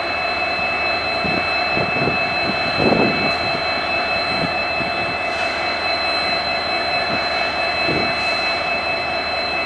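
Twin EMD WDG4 locomotives' 16-cylinder two-stroke EMD 710 diesel engines idling, with a steady high turbocharger whine over the engine noise. A brief louder sound about three seconds in.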